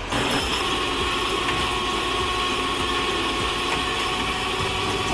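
Heavy tow truck engine running steadily, with a thin steady whine over the rumble.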